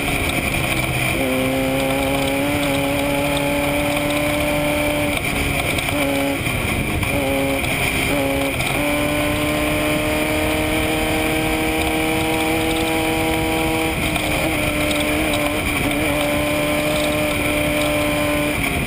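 Off-road race vehicle's engine heard from inside the cockpit, running hard at nearly steady revs. The engine note dips about a second in, wavers and breaks up between about five and nine seconds in, then holds steady and dips again around fourteen seconds, over constant road and wind noise.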